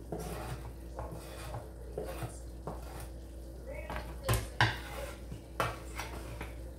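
A kitchen knife scraping chopped onion off a cutting board into a bowl, with small scrapes and clicks of the blade against the board. About two-thirds in come two sharp knocks, the loudest sounds, and another a second later.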